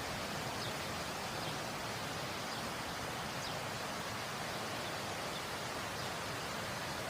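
Waterfall rushing, a steady even wash of falling water.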